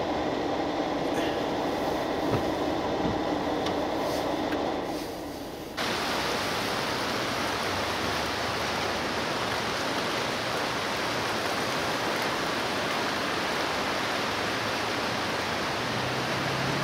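A vehicle driving away through floodwater on a road, a steady rumble with water spray that fades over the first few seconds and then cuts off. Then the steady, even rush of a fast-flowing flooded river.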